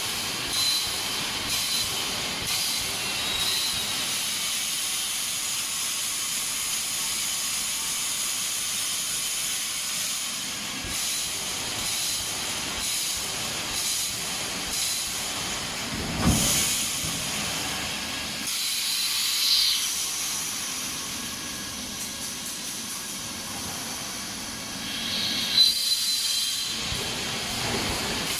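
Automatic wire mesh welding machine running, with a steady high hiss of compressed air and a few sharp clunks, the loudest about 16 and 26 seconds in.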